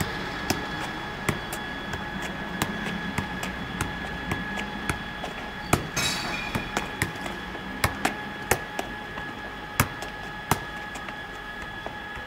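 A football being kept up with the feet: a long series of sharp thuds of foot on ball, about one to two a second and unevenly spaced, over a steady high whine. A brief hissing scuff comes about halfway through.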